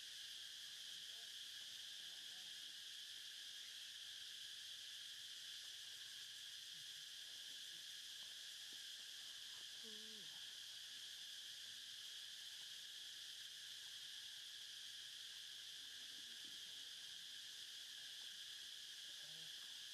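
Faint, steady insect drone: an even high hiss with no breaks, from a chorus of insects in dry forest undergrowth.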